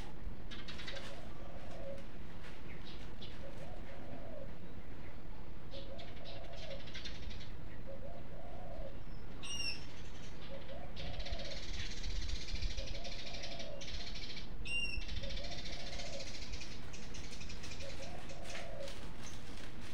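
A dove cooing, one short low coo repeated evenly about every two seconds. Two brief high bird chirps and a few seconds of hiss come in near the middle.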